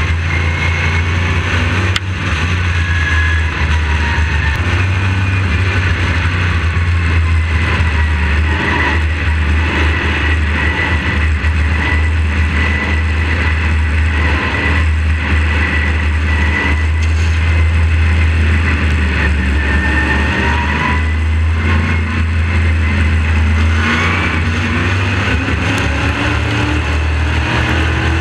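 Onboard sound of a racing modified's carbureted engine running hard at speed, its pitch rising on the straights and falling as it lifts for the corners, over and over.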